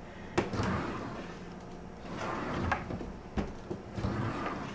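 Heavy kitchen drawer sliding in and out on rails rebuilt from melted HDPE plastic: three slides, with a few sharp knocks as it stops.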